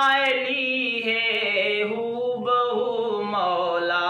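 Two men singing a naat, a devotional song, unaccompanied, holding long notes that slide up and down in pitch.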